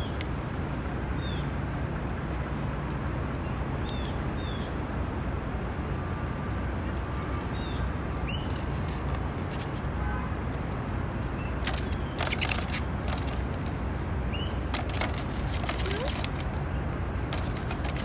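Steady low rumble of city traffic, with short high bird chips several times. There are bursts of crinkling paper as a paper gift bag is handled, about two-thirds of the way in and again a few seconds later.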